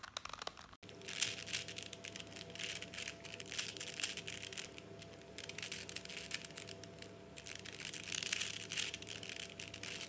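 A 4x4 Rubik's cube (Rubik's Revenge) being turned by hand: its plastic layers click and rattle in quick irregular runs from about a second in, over a faint steady hum.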